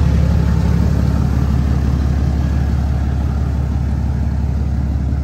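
Truck engine idling, a steady low rumble that holds even throughout.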